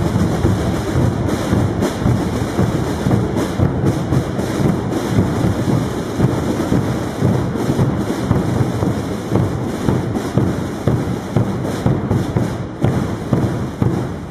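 A Holy Week procession's drum corps, many drums beaten together by hooded penitents in a loud, dense, continuous rolling beat.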